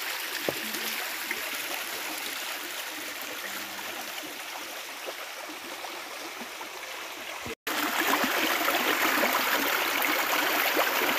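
Steady running water of a shallow rocky river. The sound cuts out for an instant about two-thirds of the way through and comes back louder.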